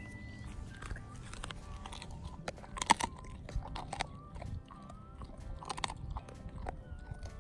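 German Shepherd chewing and crunching a raw chicken leg, with scattered crunches and the two loudest about three seconds in and again near six seconds.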